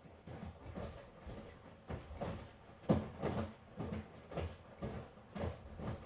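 Miele washing machine drum turning, the wet laundry tumbling over with a steady run of soft, irregular thuds and swishes, the heaviest about three seconds in.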